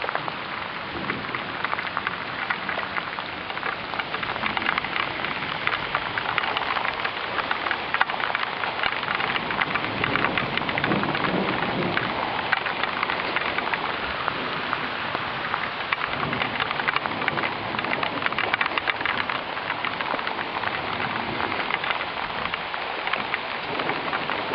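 Heavy rain pouring steadily in a thunderstorm, with a few low rumbles about ten seconds in and again later.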